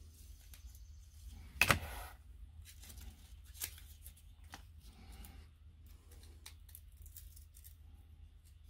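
Light clicks and rustles of hands working a roll of double-sided tape, with one sharp snap a little under two seconds in and a smaller one near four seconds, over a low steady hum.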